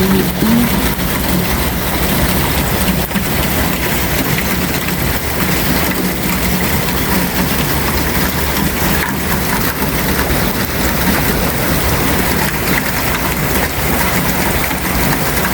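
Rain pouring steadily.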